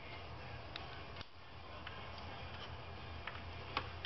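Scattered light clicks and taps of hands and a cordless screwdriver working at a waste oil burner's wiring terminal strip, a sharper click near the end, over a steady low hum.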